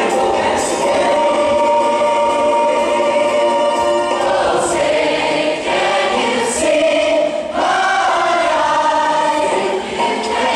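Large ensemble of voices singing in chorus: long held notes for about the first four seconds, then moving melodic lines.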